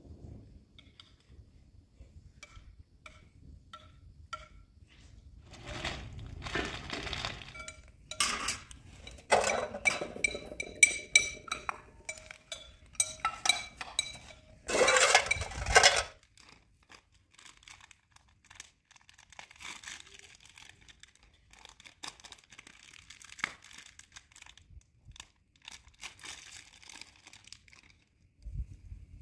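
Metal cookware being handled: bowls, a pan and its lid clinking and clattering against each other. Light, evenly spaced taps at first, a loud stretch of clattering with ringing metal in the middle, then quieter rustling and small ticks.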